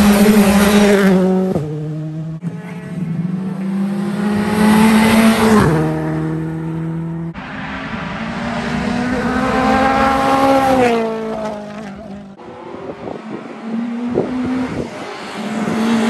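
Rally car engines at full throttle on a tarmac stage. The pitch climbs hard and drops suddenly at each upshift, about a second and a half in and again around six seconds. A second pass rises and then falls away, and another car's engine builds near the end.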